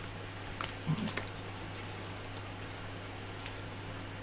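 Quiet handling noise: a few light, scattered clicks and taps as cables are moved around the plastic parts of a 3D printer's multi-material unit, over a steady low hum.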